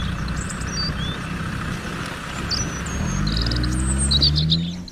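An engine running with a low rumble, rising in pitch over the last two seconds, with birds chirping.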